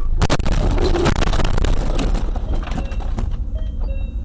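A car crash, heard from inside the car: a sudden loud impact about a quarter second in as the car runs into the back of an SUV, followed by about three seconds of crunching and crackling.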